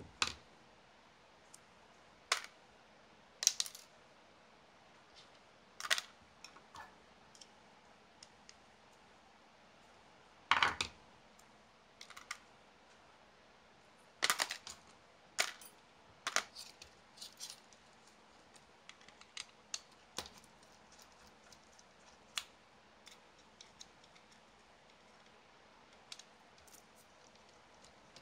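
Irregular clicks and taps of small plastic and metal RC car parts and hand tools being handled and set down on a cutting mat while the little chassis is taken apart. The loudest is a short clatter about ten seconds in.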